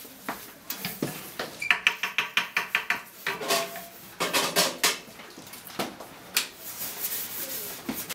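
Dishes and cutlery clattering and clinking in a steel kitchen sink as they are washed, with a quick run of clinks about two seconds in.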